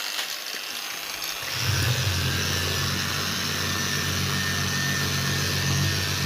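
Handheld electric polisher running with a 3,000-grit pad, wet-polishing a scratch out of a vanity countertop. It runs steadily with a faint high whine, and about a second and a half in it grows louder with a low hum.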